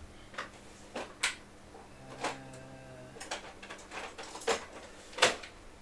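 Scattered knocks and clicks of objects being handled and set down, about eight in all, with a brief steady hum lasting about a second near the middle.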